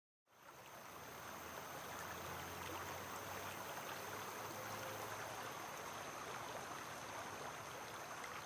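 Small stream of water running over rocks, a steady faint rush that fades in after a moment of silence.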